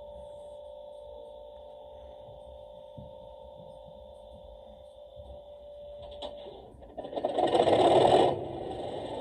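Sound-fitted Accurascale Class 37 model locomotive playing diesel locomotive sounds through its loudspeaker. A steady tone runs for about six seconds, then a loud noisy burst lasts just over a second, and a steadier running sound follows.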